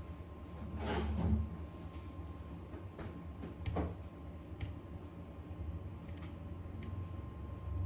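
Light handling noises on a work surface: two soft rustling swishes, then a few sharp small clicks later on, over a steady low hum and a faint steady high tone.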